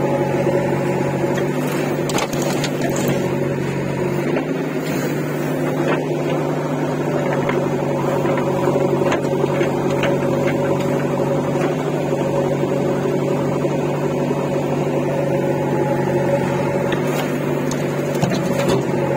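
JCB backhoe loader's diesel engine running steadily as it works, with scattered knocks and clatter of stones and earth dropping into a steel tractor trolley.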